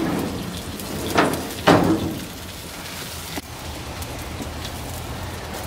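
Vinegar barbecue sauce sizzling on smoked pork butts on a hot smoker grate: a steady crackling hiss over a low hum, with two brief louder sounds a little over a second in.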